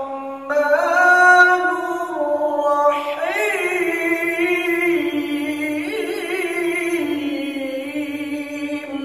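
A man reciting the Quran in melodic tilawah style, holding long notes with wavering, ornamented turns of pitch. A new phrase begins after a brief pause about half a second in, and the last note fades out near the end.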